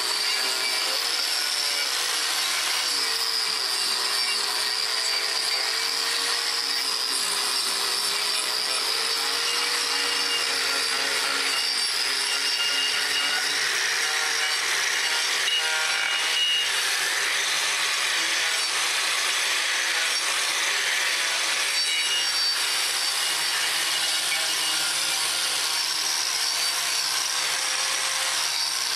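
Electric angle grinder running without a break, its disc grinding against a round slab of wood. Its whine wavers slightly in pitch as the disc bites into the wood.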